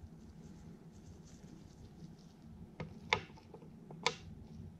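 Hand-work on a tractor engine block: faint handling noises, then a few sharp metallic clicks, two louder ones about three and four seconds in, as small metal parts are set into the engine's lifter bay. A low steady hum runs underneath.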